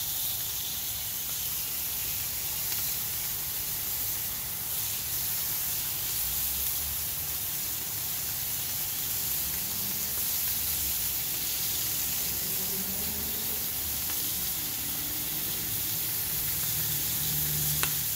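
Beef burger patties and strips of bacon sizzling on a hot flat-top griddle, a steady frying hiss.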